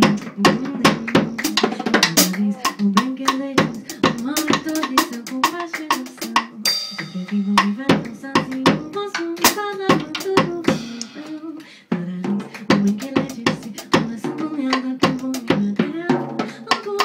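Live jazz vocal and drums duo: a woman sings a gliding melody over a busy, fast drum-kit groove of quick snare, kick and cymbal strokes, with a brighter cymbal wash about a third of the way in.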